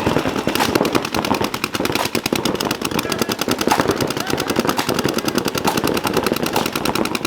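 Paintball markers firing fast and without let-up, a rapid stream of sharp pops about a dozen a second.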